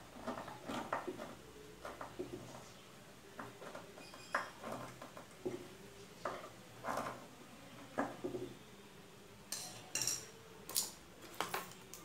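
Hand screwdriver driving a screw that fixes an aluminium angle bracket into a wooden base, making irregular creaks, scrapes and clicks as it turns. Near the end come a few sharp metallic clinks.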